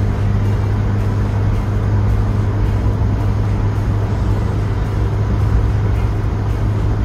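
Cabin drone of a 1977 Vauxhall Cavalier Mark 1 cruising at a steady speed: a steady low engine hum at an unchanging pitch, with road noise, heard from inside the car.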